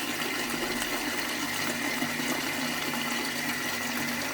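Toilet flushing, water rushing steadily through the bowl.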